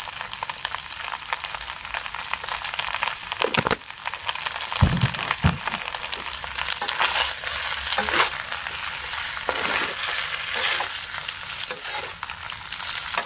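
Rice noodles sizzling as they are stir-fried in a pan, with a spatula scraping through them in repeated strokes and a couple of dull knocks against the pan about five seconds in.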